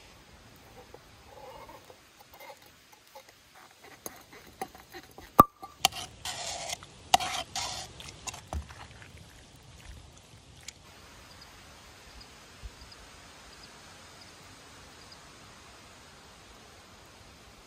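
Cooking clatter: a metal pot knocks and scrapes against a frying pan as cooked penne is tipped onto shrimp, with a sharp clink about five seconds in and a couple of seconds of scraping and sliding noise. After about eleven seconds there is only a steady faint hiss.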